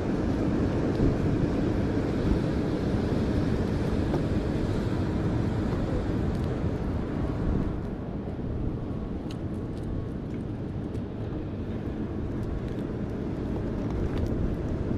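Steady wind rumble on the microphone mixed with ocean surf, a constant low noise, with a few faint clicks in the second half.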